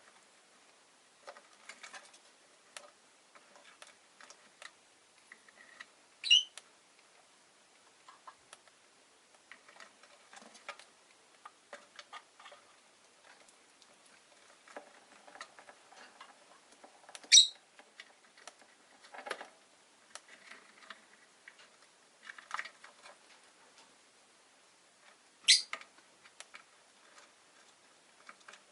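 Rosy-faced lovebirds in a cage: three sharp, high chirps about ten seconds apart, between a steady scatter of small clicks and taps.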